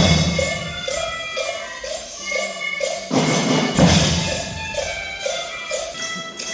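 School drum band playing: drums and tambourine-like jingles under a short pitched melody that repeats about twice a second, with heavy drum hits at the start and again about three seconds in.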